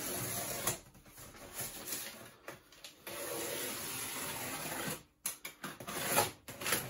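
Clear polythene wrapping on a boxed washing machine being cut and pulled off by hand. Stretches of steady scraping noise, then broken crackly rustling near the end.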